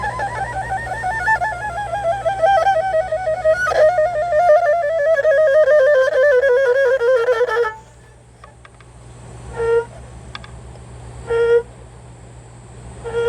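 Solo erhu playing a fast, wavering trill that slides slowly downward in pitch for about eight seconds, then breaks off. Three short, separate notes follow, spaced a second and a half to two seconds apart, in a passage of the piece that imitates birdsong.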